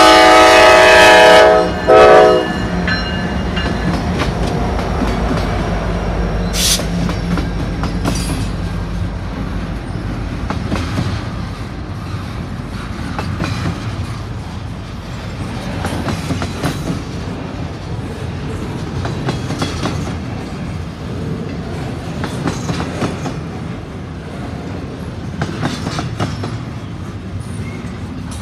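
Norfolk Southern diesel locomotive's horn sounding at the crossing, a long blast ending about a second and a half in and then a short one, the loudest sound here. The locomotives' engine drone then fades while the double-stack intermodal freight cars roll past with a steady rumble and clickety-clack of wheels on the rails.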